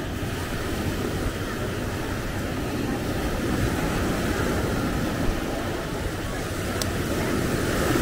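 Steady outdoor wash of noise: a continuous rush of road traffic blended with breaking surf, with no single event standing out.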